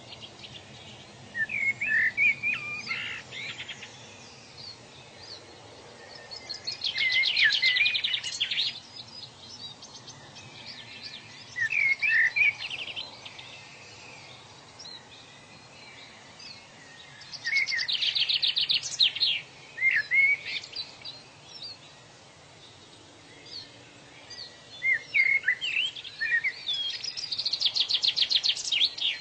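Songbirds calling: bouts of short chirps and fast, rapidly repeated trills that come back about every ten seconds, over a steady faint background hiss.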